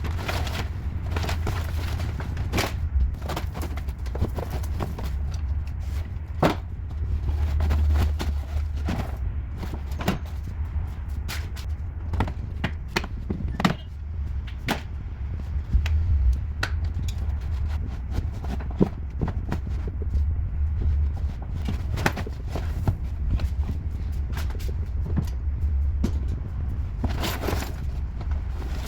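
Irregular clicks and light knocks of hands and cleaning tools working on car interior trim, over a steady low rumble.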